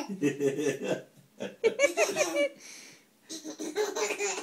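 A baby laughing in three bursts of giggles, tickled by a cat licking its toes.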